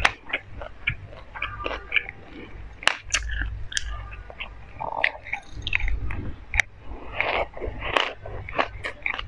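Close-miked chewing and crunching of a mouthful of sesame seeds: many small, irregular crisp crackles and mouth clicks.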